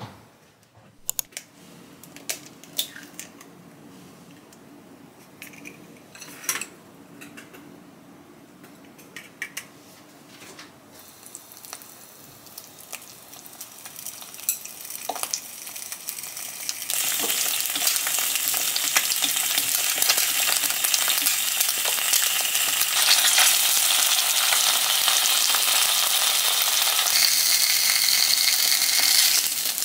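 Scattered sharp clicks and taps of kitchen utensils, then food frying in a pan. The sizzle rises from faint to loud and steady a little past halfway.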